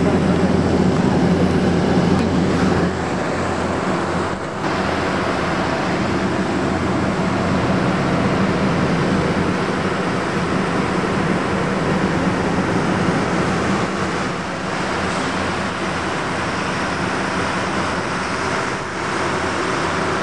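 R.J. Corman diesel locomotive engines running steadily, a low hum with a slight drop in loudness about three seconds in.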